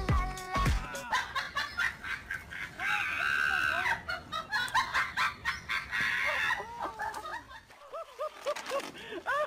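Chicken-like clucking and squawking calls, ending in a run of short rise-and-fall clucks, several a second, near the end.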